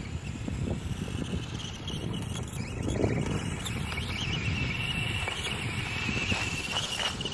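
Brushless electric motor of a SKYRC SR5 1/4-scale RC dirt bike whining as the bike rides, the high whine growing stronger about halfway through. Wind rumbles on the microphone underneath.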